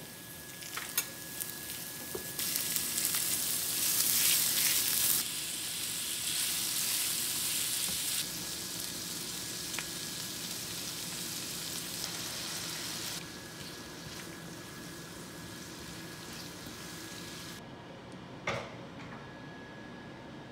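Green onion, garlic, then cubed pork and onion sizzling and frying in a hot nonstick pan, stirred with a silicone spatula, in several cut segments; the sizzle is loudest a few seconds in and dies down near the end. A faint steady high whine runs underneath, and a single knock comes near the end.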